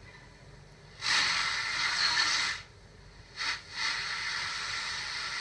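Blaupunkt Essen car radio hissing with FM static as its tuning knob is turned between stations. A loud burst of hiss comes about a second in and lasts about a second and a half, then two short blips, then a steadier hiss near the end.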